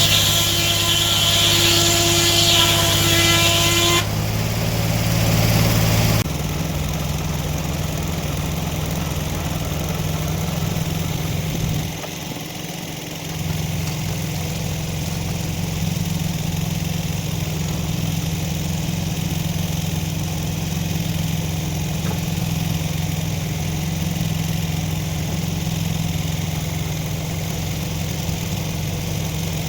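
Sawmill engine running steadily. For the first few seconds the saw is cutting through wood, a high hiss over the engine, which then stops, leaving the engine running on its own with a short dip about twelve seconds in.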